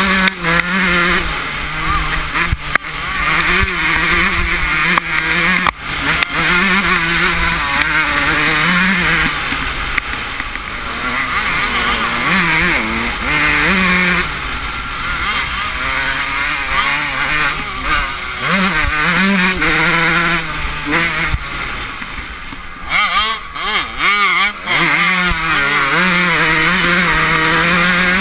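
A 125cc two-stroke motocross bike's engine heard from on board, revving up and falling back again and again as the throttle is opened and shut through the turns and straights, with a few sharp drops near the end where the throttle is chopped.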